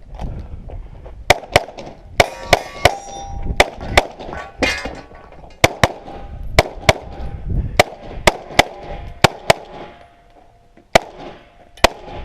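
Pistol shots fired in quick strings during a USPSA stage, about twenty in all, several followed by the ring of steel targets being hit. The firing pauses briefly about ten seconds in, then two more shots near the end.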